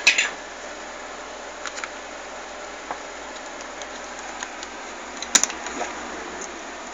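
Steady background hiss and hum with a few sharp clicks and small knocks of handling. The loudest clicks come right at the start and about five and a half seconds in.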